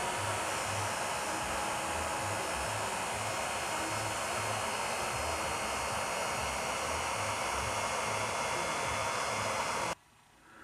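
A small electric test blower running steadily, blowing air through a solar hot air panel in an even whoosh that cuts off suddenly near the end.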